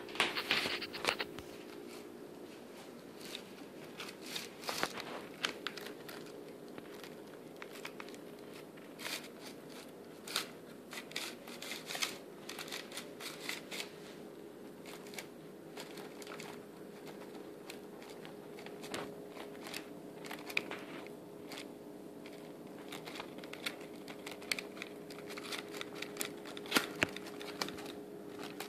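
Syrian hamster gnawing and scraping its teeth on the hard crust of a large round loaf, unable to bite through: a string of small, irregular crunches, scratches and crinkles. A faint steady hum lies underneath.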